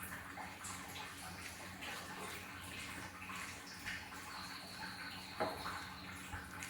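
Someone eating fried fish close to the microphone: soft chewing and wet mouth sounds with small scattered clicks, and a sharper click about five and a half seconds in.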